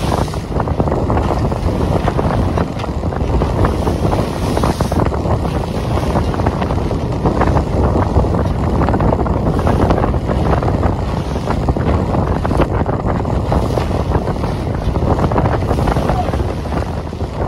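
Wind buffeting the microphone aboard a yacht under way in a choppy sea, a loud steady rushing with the wash of waves.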